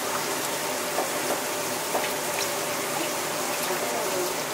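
Wet squelching and swishing of rubber-gloved hands kneading a thick red chili-pepper seasoning paste in a large steel bowl, with a few faint clicks over a steady watery hiss.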